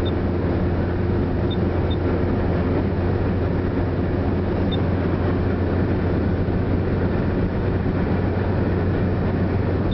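Steady cabin noise of a car cruising at motorway speed, with a low drone under it.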